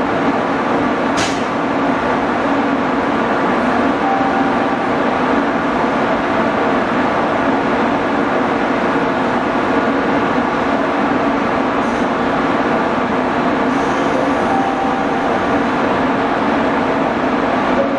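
Series 713 AC electric multiple unit standing at the platform with its equipment blowers running: a loud, steady drone with several steady tones in it. A sharp click about a second in.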